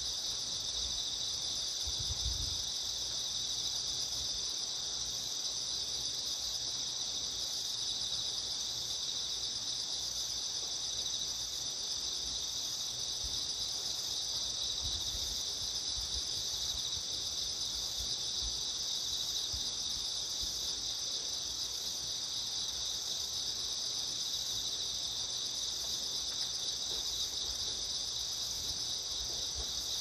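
A steady, unbroken high-pitched chorus of many insects at dusk, with a faint low rumble underneath.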